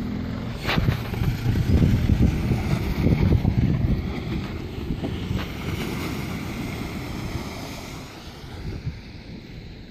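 Wind buffeting the microphone over a Toyota Hilux 3.0 D4D pickup's diesel engine as it drives off through mud and shallow water, fading as it moves away.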